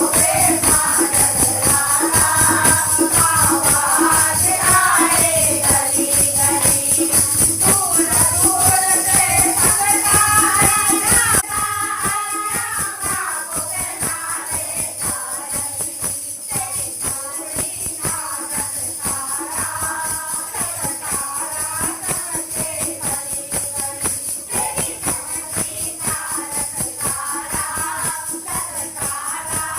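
Hindi devotional bhajan sung by a kirtan group over fast, steady jingling hand percussion. The whole mix drops noticeably in loudness about a third of the way in, and the singing and rhythm carry on.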